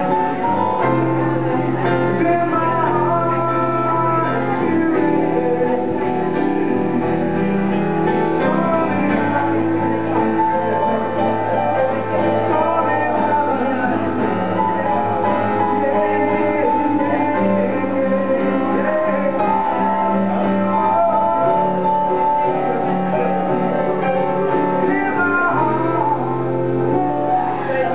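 Live acoustic jazz-ballad performance: a singer's voice over acoustic guitar and a Roland FP-4 digital piano, with long held notes and sustained bass notes.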